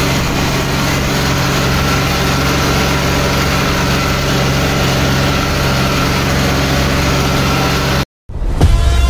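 John Deere 5310 tractor's three-cylinder diesel engine running steadily at a constant pitch. About eight seconds in, the sound breaks off into a moment of silence, and then a loud sustained sound of several steady tones, like a horn, begins.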